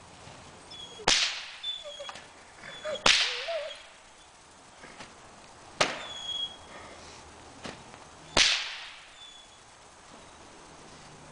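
A whip cracked four times, a sharp snap every two to three seconds, each followed by a short echo off the indoor arena walls.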